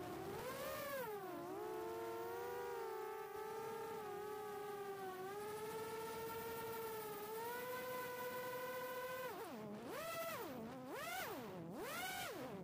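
4-inch FPV quadcopter's brushless motors (HGLRC 1303.5 4500kv) whining in flight, heard through the onboard camera. The pitch holds fairly steady, then dips low and climbs back three times in quick succession near the end as the throttle is cut and opened again.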